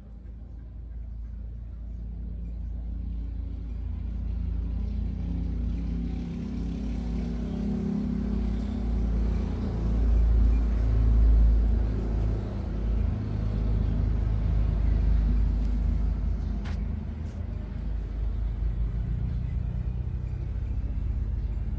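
A low rumble that builds over the first ten seconds or so and then holds, with a single faint click late on.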